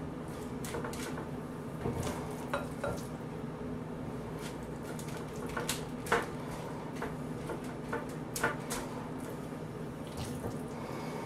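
Metal spoon clinking and scraping against a glass mixing bowl and foil-lined baking pans as stuffing is scooped, in scattered light clicks, the loudest about six seconds in. A steady low hum runs underneath.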